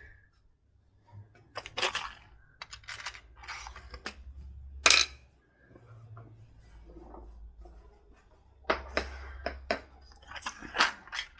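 Small plastic handling noises: clicks and short rattles of plastic parts drawers and loose LEGO pieces being handled, with one sharp, loud click about five seconds in.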